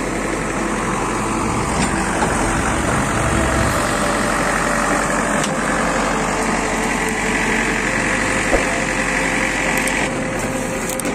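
JCB 3DX backhoe loader's diesel engine running steadily at idle, with a higher steady whine joining for a few seconds near the end.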